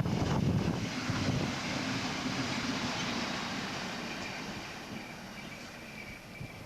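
PKP SA102 diesel railbus running past and slowing on its way into the station, its wheel and engine rumble fading away. A thin, high squeal comes in over the last few seconds.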